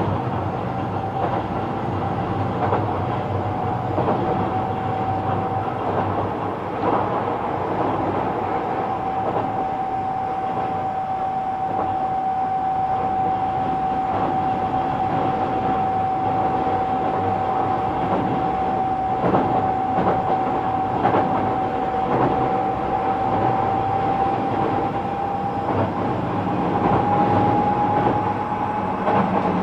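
Kobe Municipal Subway 6000 series train (Hitachi hybrid-SiC inverter) running between stations: a continuous rumble of wheels on rail with a few knocks, under a steady whine that rises slightly near the end.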